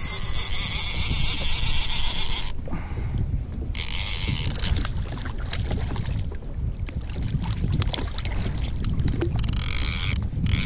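Wind buffeting the microphone on a fishing kayak, with three bursts of a high hissing whirr from the fishing reel as a fish is fought. The first burst lasts about two and a half seconds at the start, a short one comes about four seconds in, and another comes near the end.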